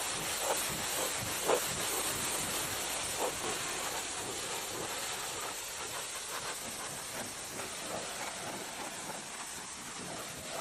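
Steady hissing noise that fades slightly, with a few light knocks in the first few seconds.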